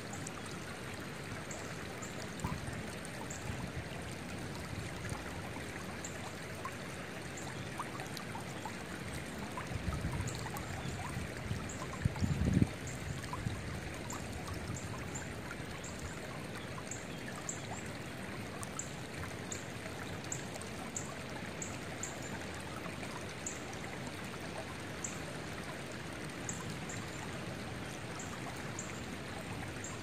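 Shallow, rocky creek flowing over stones in a steady rush of water. A bird gives short, high chirps again and again, and wind buffets the microphone in two low gusts near the middle, the second the loudest.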